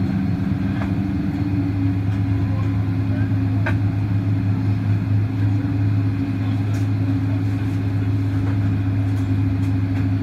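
Steady low drone inside a Boeing 777-200 cabin on the ground: the aircraft's engines and air system running as one hum, with a deeper note that grows louder about a second and a half in.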